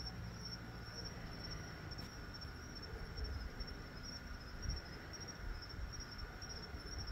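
Crickets trilling steadily in a high, continuous evening chorus, with an uneven low rumble underneath.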